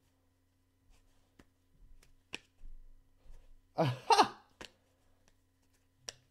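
A person's short breathy vocal sound, like a sigh, about four seconds in, between a few faint clicks and taps, over a faint steady electrical hum.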